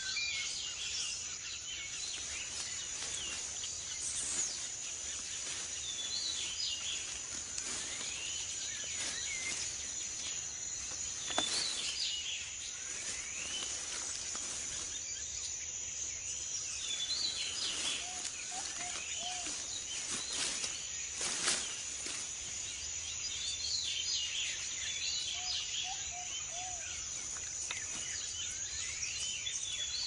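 Tropical rainforest ambience: a steady high insect drone under frequent bird chirps and calls, with two brief runs of lower repeated notes. Two sharp clicks stand out, one about a third of the way in and one about two-thirds in.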